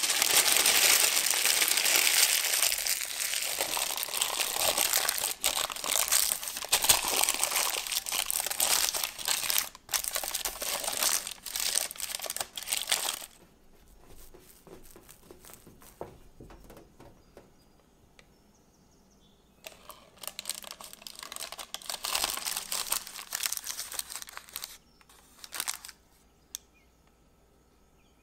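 Baking parchment crinkling as it is crumpled and pressed into a glass casserole dish: a long spell of about thirteen seconds, a quieter stretch, then a second spell of about five seconds.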